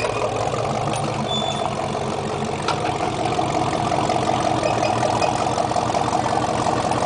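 GMC pickup truck's engine running steadily at low revs, a little louder in the second half. A single sharp click sounds a bit before the middle.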